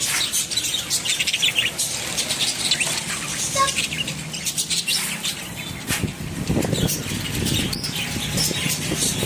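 A large flock of caged budgerigars chattering and chirping together in a dense, continuous stream of rapid high chirps.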